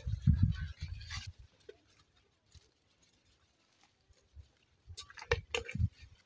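Handling thumps in about the first second, then quiet, then a few sharp clatters of plastic cups and jugs being handled over a basin of soapy water near the end.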